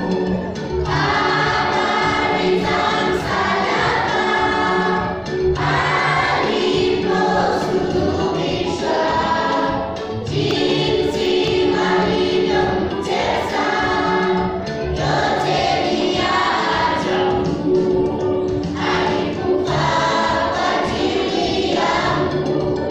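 Large children's choir singing a gospel song together, in phrases of about four to five seconds each.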